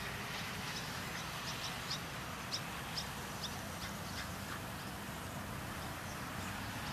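Swallows calling as they fly low over the grass: a dozen or so short, high chirps, mostly in the first four or five seconds, over a steady low rumble of road traffic.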